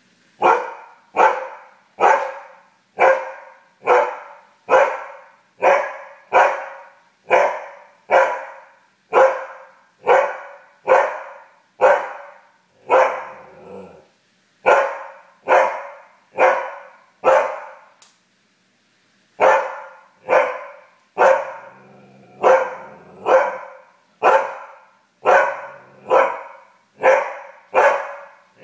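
Siberian husky barking over and over in a steady rhythm, a little over one bark a second, with a brief pause about two-thirds of the way through and a couple of longer, drawn-out calls among the barks.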